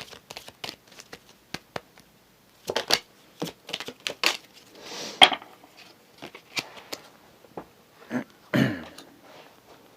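An oracle card deck being shuffled by hand: irregular snaps and flicks of cards, with a short rustle about halfway and a heavier soft knock near the end.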